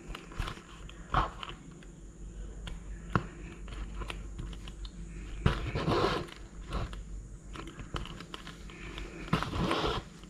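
Hand saddle stitching through vegetable-tanned leather: small clicks of the needle going through the holes, and a longer rasp of thread drawn through and pulled tight, a few seconds in and again near the end.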